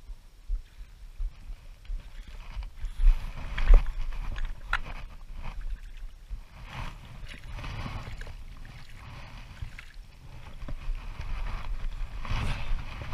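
A hooked fish thrashing and splashing at the water's surface as it is reeled in close to shore, in irregular bursts over a low rumble.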